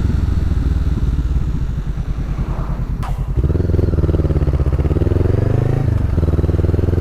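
Honda CB 500F parallel-twin engine running through an aftermarket Jeskap exhaust with the catalytic converter still fitted, under way. The engine eases off with a low pulsing beat, a click comes about three seconds in, and then it pulls again with the pitch climbing steadily for a couple of seconds. There is a brief dip in pitch near the end, after which it runs on steadily.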